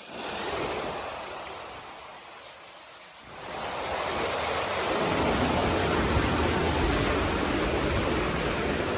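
Rushing water running through a flooded mine, a steady hiss that swells up about three seconds in and stays loud.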